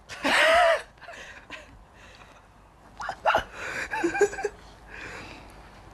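A short, loud, breathy vocal sound from a person in the first second, then faint mumbled voices a few seconds later.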